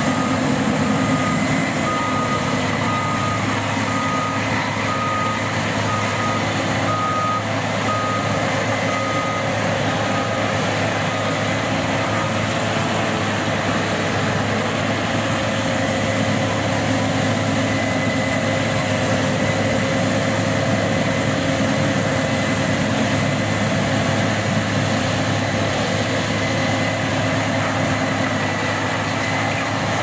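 A combine harvester's engine runs steadily. For roughly the first twelve seconds a reversing alarm beeps about once a second, then stops.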